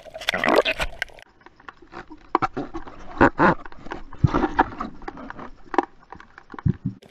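A splash as the camera is dunked, then muffled underwater sound: bubbling, gurgling and irregular knocks and clicks.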